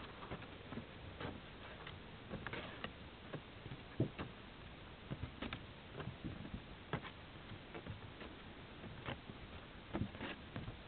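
Faint, irregularly spaced clicks and light taps over a steady hiss, the sharpest about four seconds in and again near ten seconds.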